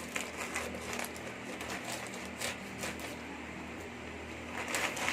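Handling noise from a plastic-wrapped parcel: scattered short crinkles and clicks, a few a second, with a small cluster near the end, over a steady low hum.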